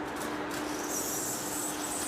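Heavy-duty face lathe running in a machine shop: a steady machine hum with a high hiss that joins about half a second in.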